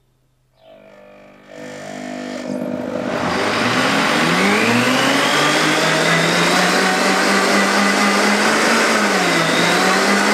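Harrexco high-speed blender motor starting about a second in and climbing in speed over the next few seconds as its dial is turned up, then running steadily at high speed with a whine, its pitch dipping briefly near the end. It is blending raw carrot and apple with too little liquid in the jug.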